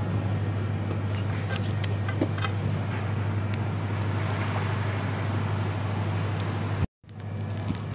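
Charcoal embers crackling with scattered small pops beneath a grilling carp, over a steady low hum. Everything cuts out for a moment near the end.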